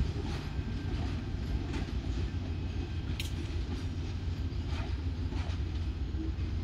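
VIA Rail passenger train of stainless-steel coaches rolling away over the rails: a steady low rumble with a few sharp wheel clicks over the rail joints, the clearest about three seconds in.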